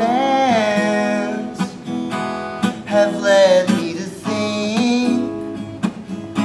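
Steel-string acoustic guitar strummed and picked, with a man's voice singing long, gliding notes over it.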